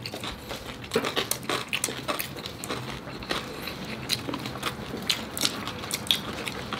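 Close-up chewing and crunching of crispy air-fried lechon kawali, the pork belly's crackling skin breaking into a steady run of irregular sharp crunches.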